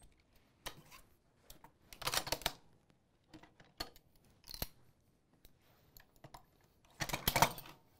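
Metal parts of an M2 .50 cal heavy machine gun clicking and clacking as it is disassembled: a string of separate sharp clicks, with a quick cluster about two seconds in and the loudest cluster near the end.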